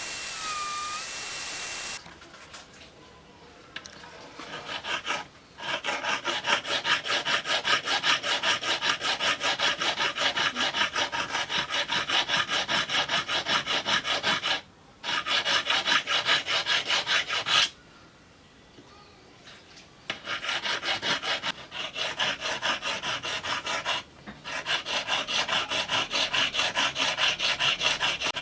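Hand abrading in the knife work: quick rhythmic back-and-forth rubbing strokes, about three a second, in several long runs broken by short pauses. A steady hiss with a faint whine cuts off about two seconds in, before the strokes start.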